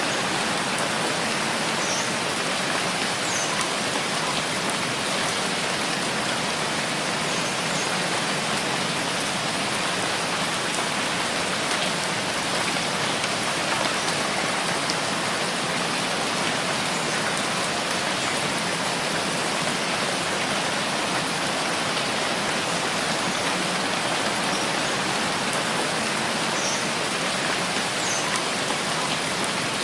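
Steady rainfall, an even, unbroken hiss, with a few faint short high chirps now and then.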